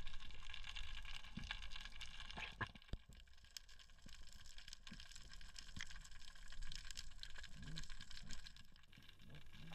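Faint underwater ambience heard through a diving camera: a low, steady rumble with scattered soft clicks and ticks.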